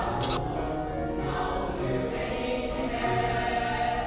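Background music: a choir singing held chords.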